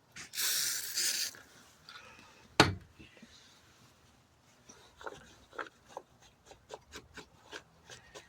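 A spray cleaner hissing in one short spray, then a single knock, then a run of short rubbing strokes as the garage door opener keypad is wiped clean.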